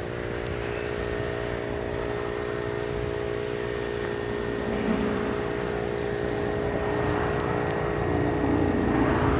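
Harbor Freight Pittsburgh air compressor running steadily, a constant mechanical hum, while it pumps air into a car tire.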